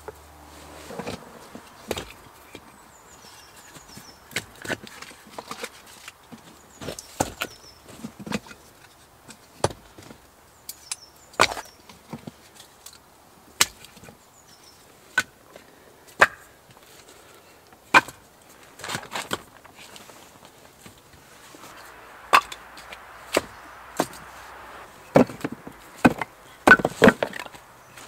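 Firewood being chopped and split by hand: a long run of sharp, irregular blows with splintering, coming faster near the end.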